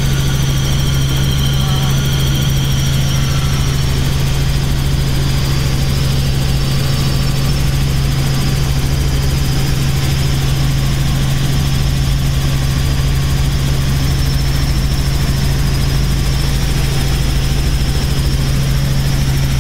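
Robinson R44 Raven II helicopter in steady cruise, heard from inside the cabin: its six-cylinder Lycoming piston engine and rotors make a constant low drone with a faint steady high tone over it.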